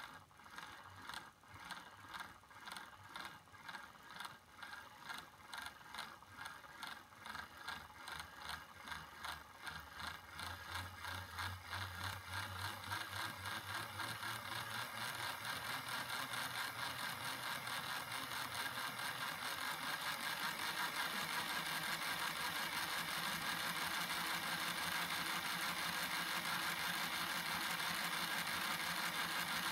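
A LEGO model steam locomotive runs on a bench test with its wheels lifted clear, so its motor spins the driving wheels and the plastic Technic side rods and valve gear freely. It starts as a rhythmic plastic clatter about twice a second and speeds up steadily into a continuous whir with a low hum, getting louder.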